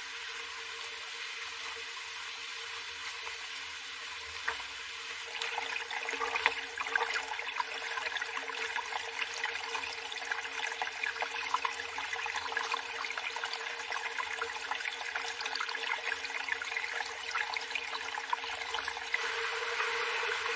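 Water running and splashing, a steady hiss that grows busier with many small splashes from about five seconds in.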